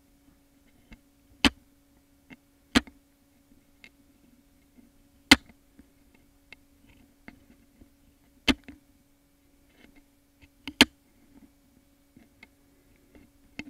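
Sharp cracks and clicks as a rose seed's hard shell is squeezed in the jaws of pliers: five loud cracks a second or more apart, with fainter ticks between them. A steady low hum runs underneath.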